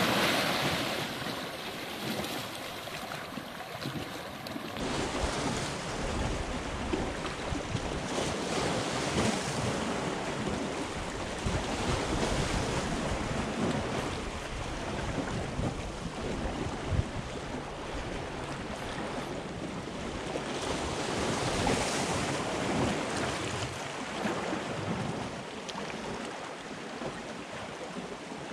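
Small sea waves washing and splashing over shore rocks, loudest at the start. From about five seconds in, wind rumbles on the microphone over the lapping water.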